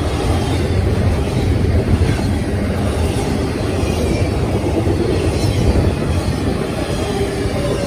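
Norfolk Southern intermodal freight cars loaded with trailers and containers rolling past: steel wheels on rail making a loud, steady, low-heavy noise with no break.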